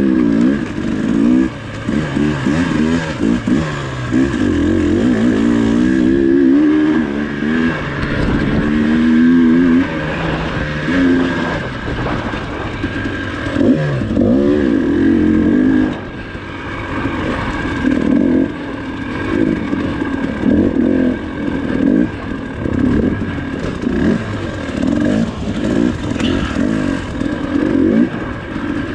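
Dirt bike engine, recorded from the bike itself, revving up and down continually as the throttle is worked over the trail.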